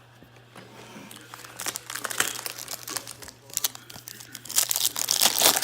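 Foil baseball card pack wrapper crinkling and tearing as it is opened by hand, in irregular crackles that grow denser and louder toward the end.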